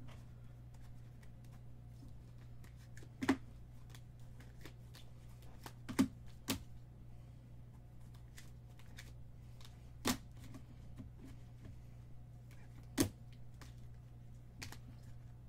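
Trading cards in clear rigid plastic holders clicking and tapping against each other as they are handled and stacked by hand: about half a dozen sharp clicks a few seconds apart, with fainter ticks between, over a steady low hum.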